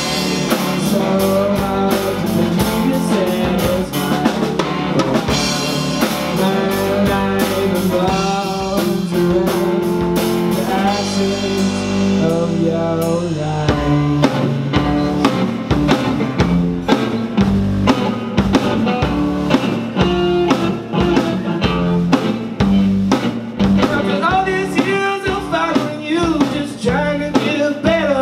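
Live rock band playing: electric guitar, bass and a drum kit, with a man singing at the start. About halfway through, the drumming changes to a steady run of quick hits.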